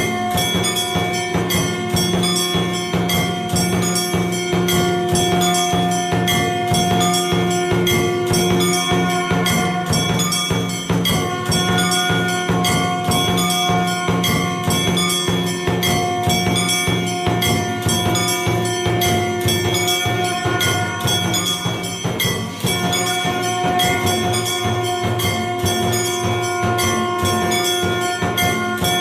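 Music with fast, steady percussion and bell-like ringing over sustained held tones.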